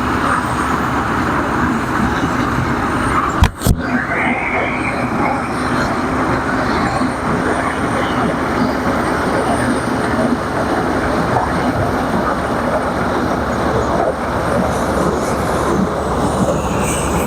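Dasmesh combine harvester running steadily while harvesting maize, a dense, loud machine noise with a steady low engine hum. A single sharp thump about three and a half seconds in.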